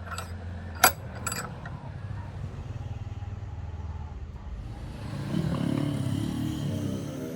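A motor running steadily, with three sharp knocks in the first second and a half, the loudest about a second in. From about five seconds in it grows louder and its pitch rises and wavers.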